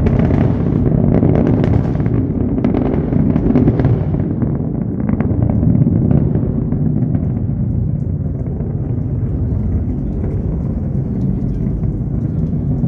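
Rocket launch heard from a distance: a deep, continuous rumble with dense crackling from the climbing rocket's motors, the crackle thinning out after about six seconds while the rumble carries on.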